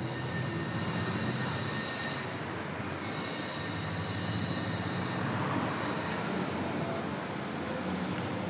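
Steady rumble of a passing motor vehicle.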